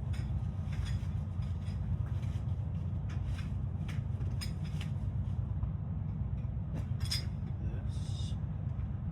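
Light metallic clicks and clinks of driveshaft parts and hand tools being handled, a few sharper ones near the end, over a steady low hum.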